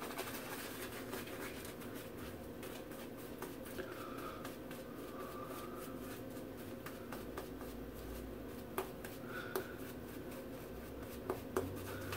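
Shaving brush scrubbing shave-soap lather onto a bald scalp, re-lathering for a second pass: a faint, scratchy rubbing with fine clicks and a few sharper ticks in the second half.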